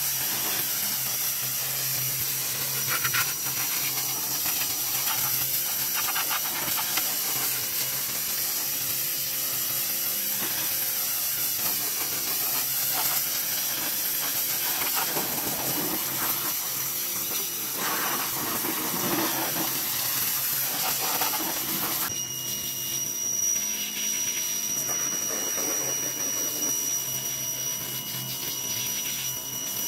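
Greenworks electric pressure washer running, its high-pressure spray hissing steadily against a pickup truck's tailgate and bed. About two-thirds of the way through, the sound changes abruptly and a high, steady whine sits over the hiss.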